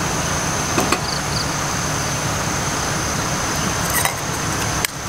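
Steady low outdoor rumble and hiss with a thin, constant high-pitched tone over it, broken by a few light clicks of a metal spoon and camp pot lid being handled.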